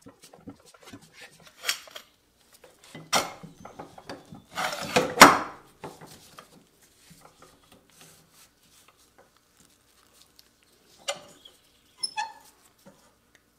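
Handling noises of a cast-iron clamp being set on a wooden table edge: rubbing and scraping on the wood, metal knocking against the tabletop, the loudest clatter about five seconds in as the clamp goes on. Softer knocks about eleven and twelve seconds in as it is tightened down to hold a reglued edge strip.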